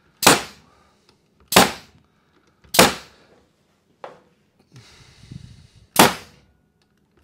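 Pneumatic stapler firing staples into the pine bottom bars of beehive frames: four sharp shots, three about a second and a quarter apart, then the fourth after a pause. Between them, a light click and faint rustle as the tool is moved along.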